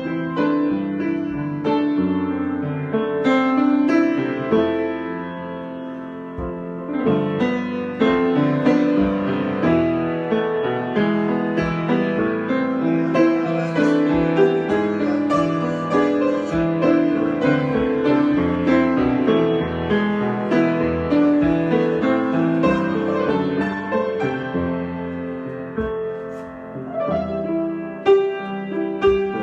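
Solo piano improvisation, played continuously with many overlapping notes and chords.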